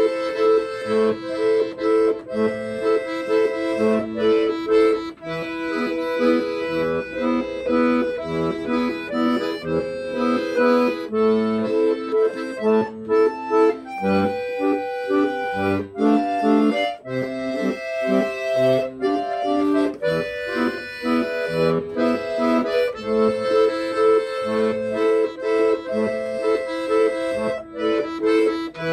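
Accordion music: a tune of held reedy notes played over a regular beat of bass notes.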